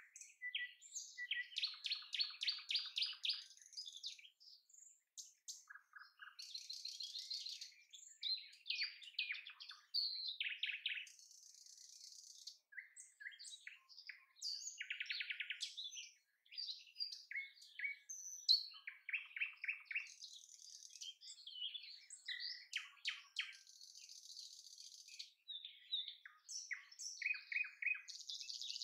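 Songbirds chirping and singing: a busy, unbroken mix of short chirps, whistles and fast rattling trills.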